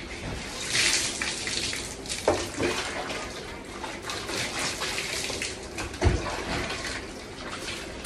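Water poured from a plastic mug over a person's head and body, splashing onto a hard floor, with a heavier splash about a second in and a couple of dull knocks.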